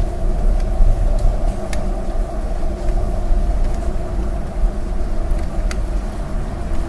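Steady low rumble of city traffic heard through an apartment window, with a few sharp scattered ticks of raindrops.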